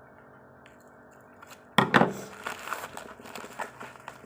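Parcel packaging being pulled and torn open by hand: a sudden loud rip just under two seconds in, then irregular crackling and crinkling of the wrapping.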